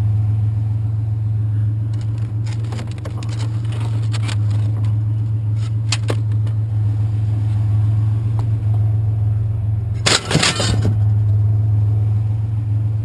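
Vehicle engine idling steadily, with scattered clinks of metal being handled and a loud clatter about ten seconds in.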